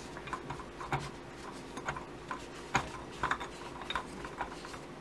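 A hand and cloth wiping out the slide-and-diaphragm chamber of a Honda CB650 carburetor, with rubbing and light, irregular clicks and taps against the metal carb body.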